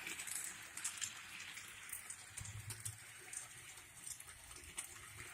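Faint, irregular light clicking and clattering of a toy train running along its track.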